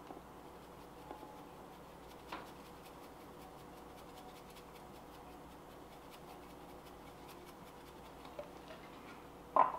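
Faint, quick ticking of ground black pepper being shaken from a small tin over a pan of sauce, with a soft tap a couple of seconds in.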